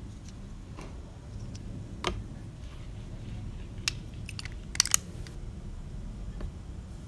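Plastic spring-loaded double lens cap being handled and pressed onto the front of a Fujifilm conversion lens: a few light clicks, then a sharp double snap about two-thirds through as its spring clips catch the lens rim. A low steady background rumble lies under it.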